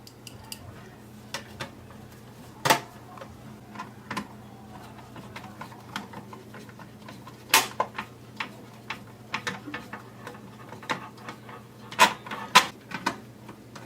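Irregular clicks, taps and clatter of small plastic and metal parts and screws being handled and fitted while reassembling a VHS/DVD player, with a few sharper knocks, over a steady low hum.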